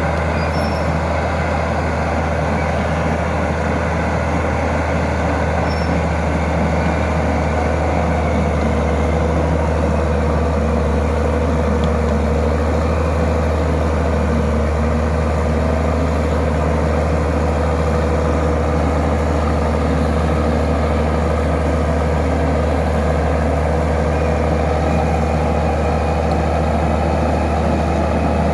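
Turbocharged diesel engine of a Fiat-Allis 14C Turbo bulldozer running at a steady speed, with a deep hum and no changes in speed.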